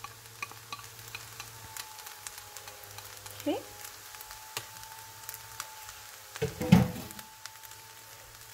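Rice frying in a pan: a faint steady sizzle with scattered little crackles and pops as it is stirred. About two-thirds in there is one louder knock.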